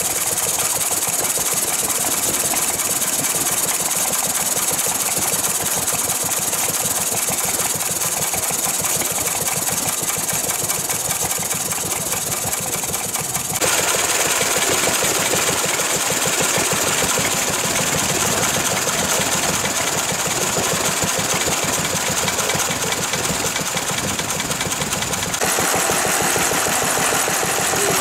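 Vintage stationary engines running steadily with a fast, regular beat. The sound changes abruptly about halfway through and again near the end.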